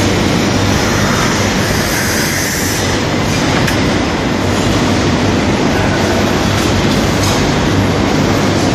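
Glass slab cutting machine running: a steady, loud mechanical noise with a constant low hum underneath.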